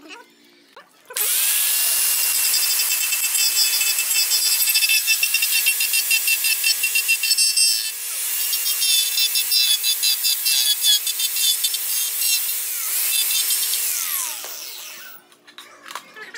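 Corded handheld power tool running and working into carved wood, with a steady motor whine over a coarse, hissing grind. It starts about a second in, eases off briefly midway, and winds down near the end.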